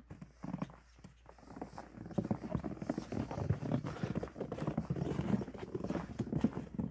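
Footsteps crunching in fresh snow on a wooden deck: a quick, irregular run of crunches that gets louder about two seconds in.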